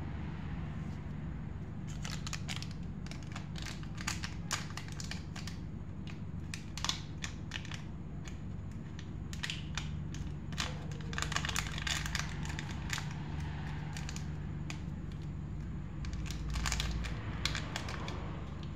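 Foil-laminate ENO sachet crinkling and crackling in the fingers as it is handled and torn open, in irregular clusters of sharp crackles.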